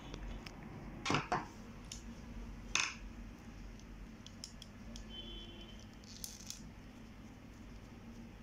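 Sharp plastic clicks and taps from handling the Epson DS-1630 scanner's ADF pickup-roller assembly and a screwdriver, loudest about a second in and again near three seconds. Then lighter clicks come as the screwdriver works a small screw on the assembly, with a brief faint squeak about five seconds in.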